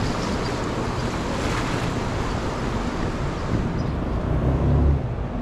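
Churning water rushing past a small boat, with wind buffeting the microphone and a low rumble swelling near the end.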